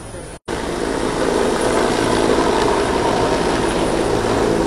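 Helicopter rotor and turbine noise, loud and steady, starting after a brief dropout about half a second in.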